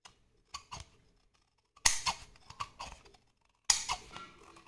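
Scissors cutting through a cardboard mailer: a few light snips, then two loud crunching cuts about two seconds apart.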